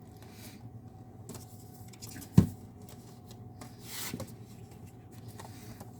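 Light handling of a plastic disc case and its slipcover: faint rustles and taps, with one sharp click a little over two seconds in.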